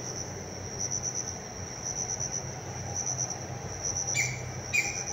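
Crickets chirping in a steady, pulsing high trill, with two short brighter calls near the end.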